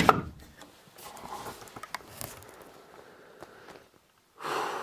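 Rustling with a few light knocks and clicks as someone moves and handles things at a wooden chest of drawers. It fades, drops out briefly near four seconds in, then a short burst of rustling comes near the end.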